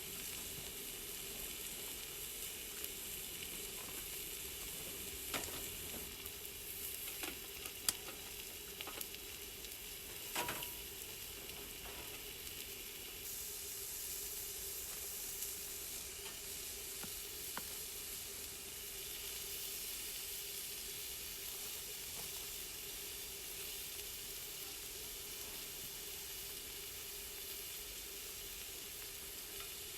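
Thick meat sizzling steadily on an iron griddle plate, with a few sharp pops.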